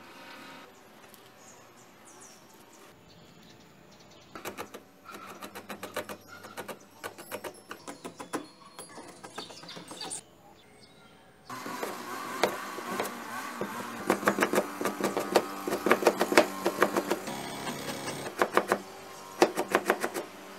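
Kitchen knife chopping rapidly on a plastic cutting board, mincing chillies and carrot: quick, even knocks that start about four seconds in, pause briefly around the middle, then come back louder and denser.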